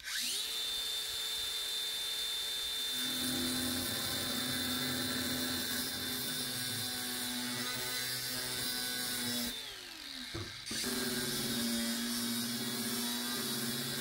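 Angle grinder with a thin cut-off disc spinning up to a steady high whine, then cutting through a rusty steel door hinge. About ten seconds in it winds down briefly, then runs and cuts again.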